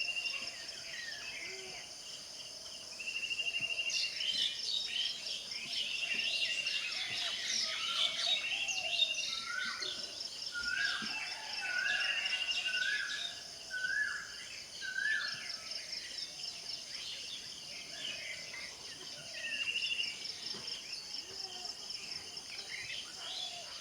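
Several birds singing together: a short trill repeated every couple of seconds, a run of five rising whistled notes midway, and many scattered chirps. Under them runs a steady high insect drone of crickets.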